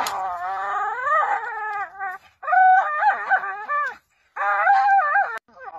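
Bull terrier howling in three drawn-out, wavering calls with short pauses between them, the first one rising and then falling in pitch.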